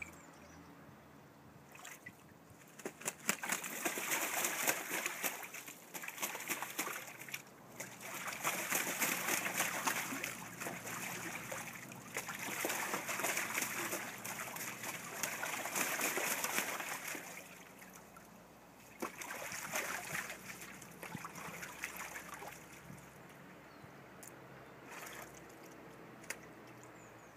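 A domestic goose bathing in a shallow metal tub of water, flapping and dipping so the water splashes and sloshes. The splashing comes in several long bouts with short lulls between, and dies down near the end.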